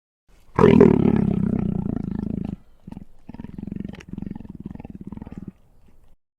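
Monster sound effect for a crocodile-bear hybrid creature: a loud roar about half a second in that lasts some two seconds, followed by a quieter, rattling growl.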